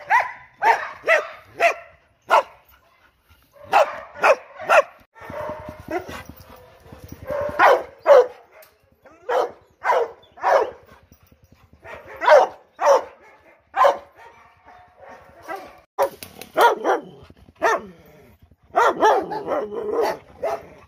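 Dogs barking loudly, several in turn: short, sharp barks in quick runs with brief gaps between.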